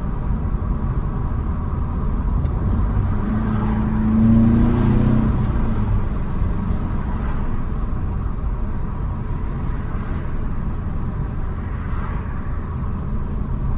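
Turbocharged 2.0-litre four-cylinder engine of a 2018 VW GTI, fitted with an aftermarket intake and turbo muffler delete, heard from inside the cabin while driving. Its note swells and rises under acceleration about three to five seconds in, then drops back to steady cruising under continuous road noise.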